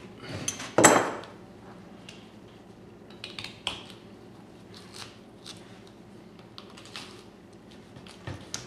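Knife scraping and cutting hide off a deer skull, with short metallic clicks and scrapes of the blade against bone; one louder scrape about a second in.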